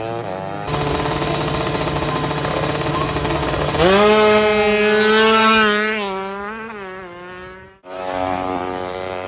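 Drag-racing motorcycle engines. A bike sits at a fast, rattling idle. Then an engine revs up sharply to a high, held pitch and fades away as the bike launches down the strip. The sound cuts off abruptly twice between clips.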